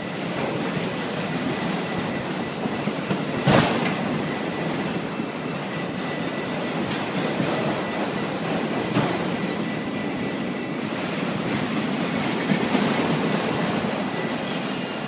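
Autorack freight cars of a BNSF train rolling past close by: a steady rumble of steel wheels on rail with a thin, steady high squeal. A few sharp knocks stand out, the loudest about three and a half seconds in.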